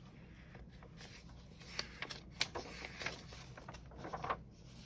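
Glossy magazine pages being turned and smoothed down by hand: a handful of crisp paper rustles and crackles, the loudest about two and a half seconds in, over a low steady hum.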